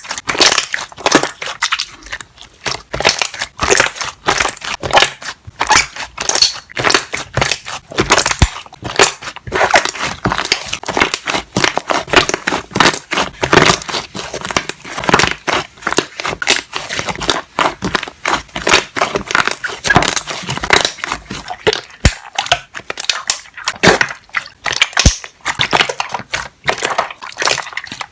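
Slime being squished, with rapid, dense popping and crackling of air bubbles trapped in it.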